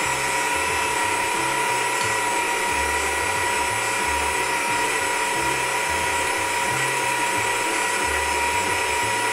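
Planetary stand mixer running at a steady speed with a constant motor whine while its beater mixes biscuit dough.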